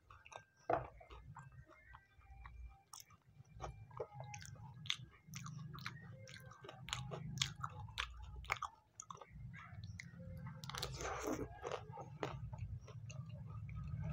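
Close-up chewing of a pani puri stuffed with green chilli: many sharp crisp crunches of the fried puri shell, with a denser burst of crunching about eleven seconds in.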